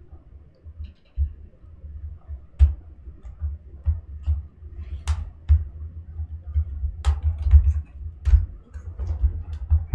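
Plastic bottom cover of a laptop being pried open along its edge: irregular sharp clicks and snaps as its clips come loose, over dull knocks from handling the machine.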